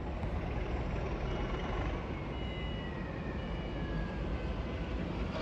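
Distant railway locomotive moving slowly through the station. It makes a steady low rumble with a few faint, short high-pitched tones.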